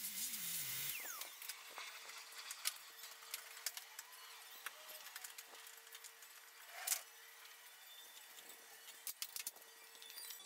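Shop vacuum switched off at the start, its motor whine falling as it spins down over about a second. Then faint scattered clicks and one knock about seven seconds in, as the vacuum's hose and cord are handled.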